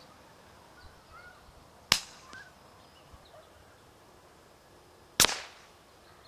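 Two suppressed rimfire rifle shots about three seconds apart, each a sharp crack with a short fading tail, the second tailing off longer. Faint bird chirps come in between the shots.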